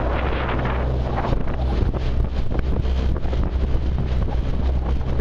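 Wind buffeting the microphone over the steady low hum of a motor launch's engine running alongside a rowing eight.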